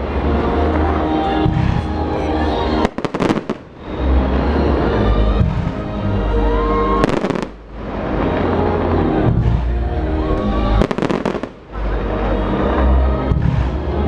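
Fireworks going off in loud bangs about every four seconds over loud festival music with a heavy bass line; the sound briefly dips after each bang.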